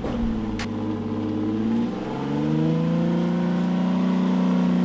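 Warn VR EVO electric winch on a Jeep Wrangler pulling the vehicle up a muddy climb. The motor's whine rises to a higher steady pitch about two seconds in, holds under load, and winds down near the end.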